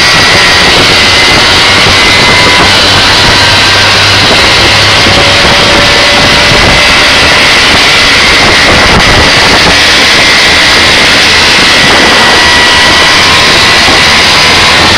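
Three-wheeled coco taxi's small engine running at speed on the road: a loud, steady, noisy drone with a faint whine held through it.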